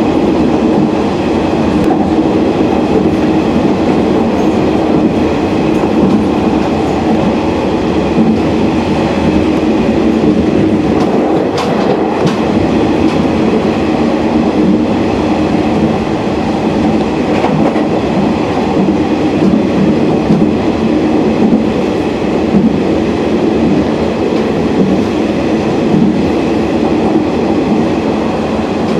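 Running noise of a local Uetsu Main Line train heard from inside the passenger car: a steady rumble of wheels on rail with a constant hum, and a faint click or two near the middle.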